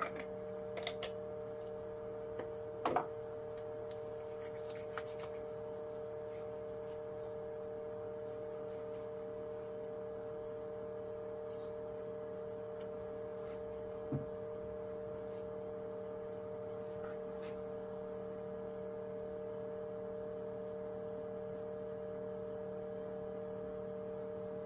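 A steady, unchanging hum made of a few level tones, with a few faint clicks early on and a single soft knock about halfway through.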